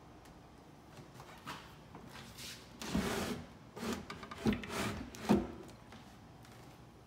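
A drawer of a painted wooden built-in dresser slid open with a wooden scrape, then pushed shut with a couple of sharp knocks, the last and loudest as it closes.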